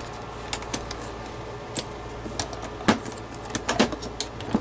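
Metal lid catches and case of a Shibaden SV-510U reel-to-reel video tape recorder being handled as the cover is unlatched: a scattered series of short clicks and knocks, over a steady low hum.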